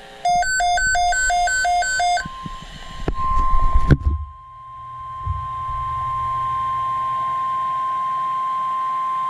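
NOAA Weather Radio Emergency Alert System alert for a severe thunderstorm watch. A short burst of rapid two-pitch electronic beeping is followed, about two seconds in, by the steady single-pitch 1050 Hz warning alarm tone. A low rumble and a sharp thump come about four seconds in.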